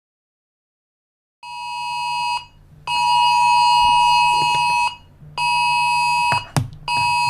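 Electronic alarm buzzer sounding an emergency alert in four long steady-pitched blasts of one to two seconds each, starting about a second and a half in, with a low hum under it and a sharp knock near the end.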